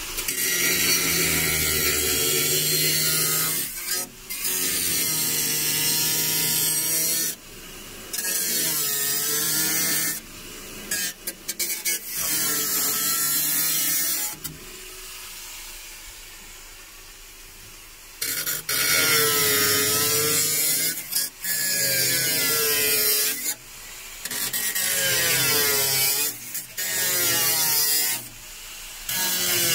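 Angle grinder with a cut-off disc cutting through the car's sheet-steel rear bulkhead. The cuts come in runs of a few seconds, with the pitch dipping and wavering as the disc bites into the metal. There are short pauses between the runs and a longer pause about halfway through.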